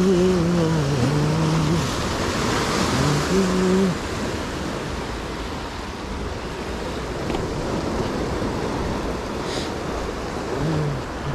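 Sea waves breaking and washing over rocks, a steady rushing surf. A man's voice is heard briefly in the first two seconds and again about three seconds in.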